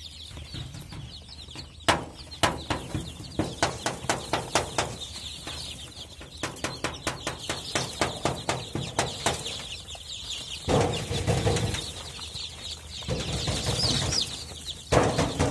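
A brood of five-day-old desi chicks peeping continuously in a dense chorus. A run of sharp taps, about four a second, comes from about two to nine seconds in, and louder rustling bursts come near eleven and fourteen seconds.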